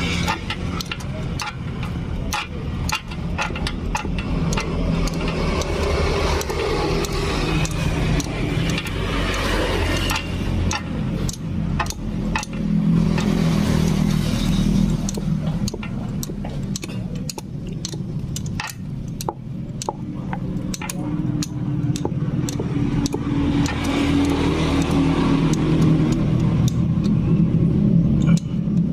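Hex key clicking and scraping against a bolt head on a motorcycle's aluminium valve cover as the bolt is turned and tightened. Many short, irregular clicks, over a steady low engine rumble.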